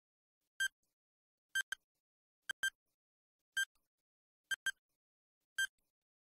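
Countdown timer's clock-tick sound effect: short, sharp, high ticks about once a second, some of them doubled into a quick tick-tick.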